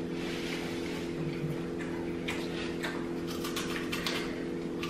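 Close-up chewing and irregular crunching of Hot Cheeto-crusted tiger shrimp, over a steady low hum.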